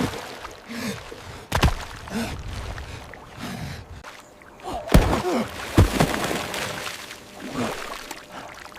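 Water sloshing and splashing, broken by a few sharp heavy knocks, the loudest two close together about five seconds in.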